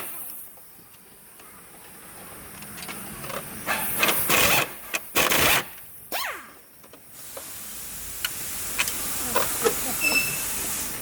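Work on a car's engine mount: a few short, loud bursts of air hiss from a pneumatic tool, then scattered light clicks of metal tools.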